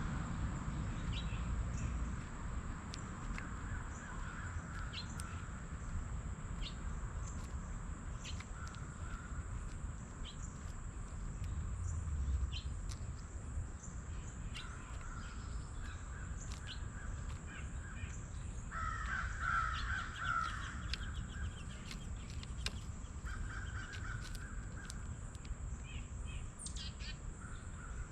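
Crows cawing outdoors: repeated harsh caws in bouts every few seconds, the loudest about two-thirds of the way through. Brief high chirps of small birds fall between them over a steady low rumble.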